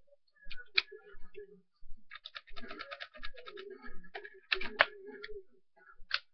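Sharp clicks from an airsoft gun being handled: single clicks, and a rapid run of clicks lasting about a second that starts about two seconds in.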